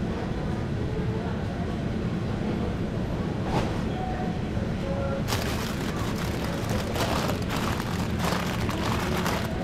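Supermarket interior ambience: a steady low hum with faint background voices, and a crackling, rustling noise joining in from about five seconds in.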